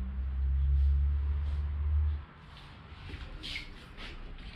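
A low rumble that cuts off suddenly about two seconds in, then light clicks and scrapes of aluminium angle bars being moved and fitted together on a workbench.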